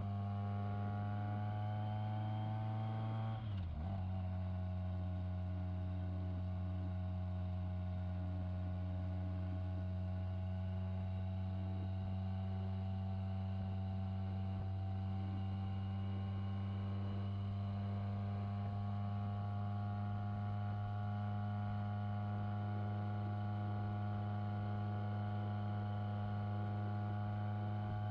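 Motorcycle engine running while riding, its pitch climbing slowly, with a sharp drop in revs about three and a half seconds in like a gear change, then climbing gradually again.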